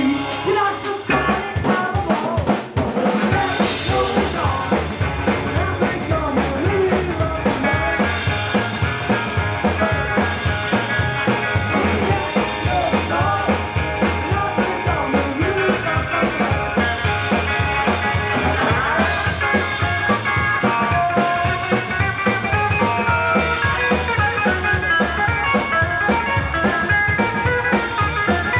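Rockabilly band playing an instrumental passage: slapped upright bass, drum kit and hollow-body electric guitar, with a steady driving beat.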